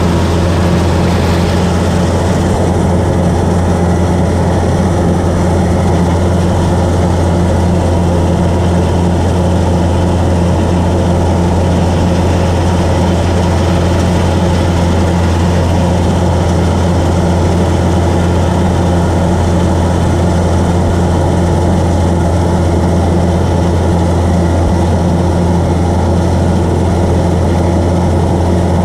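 Kubota combine harvester's diesel engine running steadily under load while the machine cuts rice, a loud constant low drone as heard from the operator's seat.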